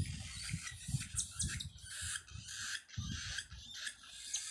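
Cockatiel chicks calling in short, repeated hissing, rasping bursts, with low bumps mixed in.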